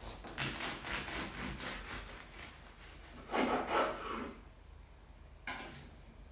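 A bread knife sawing through a crusty sesame bagel sandwich on a wooden cutting board: a run of quick back-and-forth strokes, then a louder, longer stroke about three and a half seconds in as it cuts through, and one short stroke near the end.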